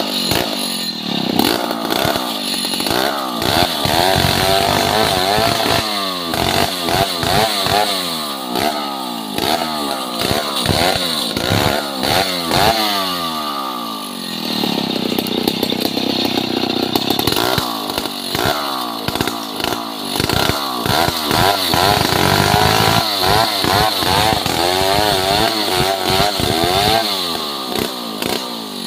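STIHL two-stroke chainsaw cutting through a large log, its engine pitch rising and falling again and again as it bogs and picks up in the cut. About halfway through it runs steadier for a few seconds before the rising and falling resumes.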